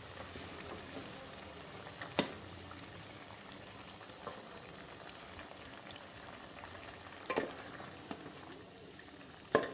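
Chicken simmering in a metal pot with a steady sizzling, bubbling hiss while a wooden spoon stirs and mashes the tender meat to shred it, knocking against the pot about two seconds in, again around seven seconds, and near the end.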